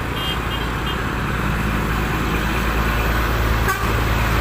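Litha & Co Mercedes-Benz bus passing, its engine and road noise a steady rumble that grows a little louder, with a few short, faint toots from its telolet horn near the start.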